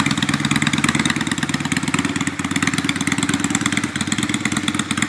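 Honda Shadow VT600's V-twin engine idling steadily through heat-wrapped bobber exhaust pipes, an even, rapid pulsing.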